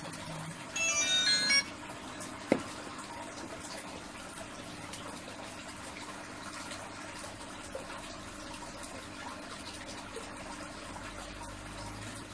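A steady faint watery hiss with a low hum underneath, after a short electronic jingle melody ends in the first second and a half and a single sharp click about two and a half seconds in.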